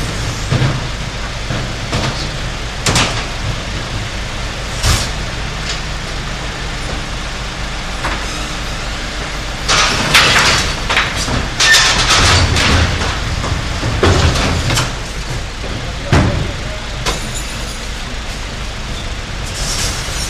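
Garbage truck engine running steadily, with scattered knocks and bangs and a burst of loud clattering about ten to thirteen seconds in.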